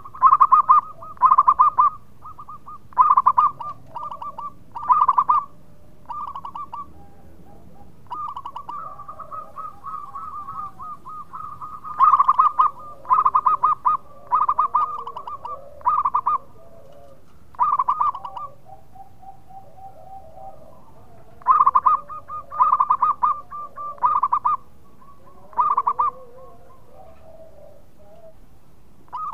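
Zebra dove (perkutut) singing: phrases of fast, rattling staccato coos, all at one pitch, some loud and some softer, with short gaps between them and a longer lull about two-thirds through.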